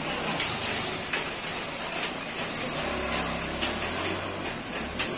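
Rain-soaked street ambience: a steady hiss of rain and water, with a motor vehicle's engine humming low from about three seconds in.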